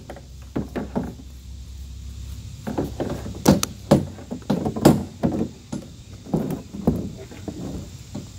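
A string of about a dozen sharp, irregular knocks and clatters from hollow plastic playhouse panels being handled and fitted together during assembly.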